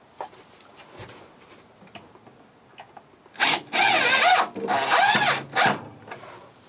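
Construction-grade screws being driven into a wall to fix a hanging unit in place: about three seconds in, four short bursts of a wavering, pitched whir, each well under a second long, follow close on one another.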